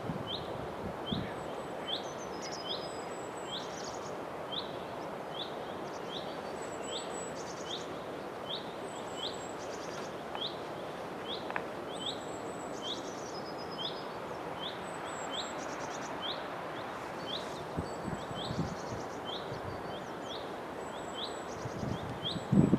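Birds singing outdoors: a steady run of short chirps about twice a second, with a higher trilled phrase every couple of seconds, over a steady background hiss of ambient noise.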